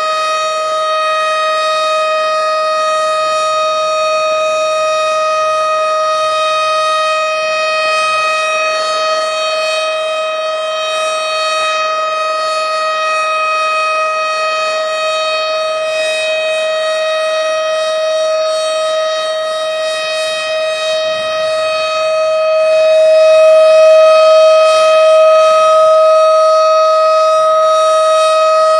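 Outdoor tornado warning siren sounding a steady tone: one held pitch with many overtones, no rise or fall. It grows louder about three-quarters of the way through.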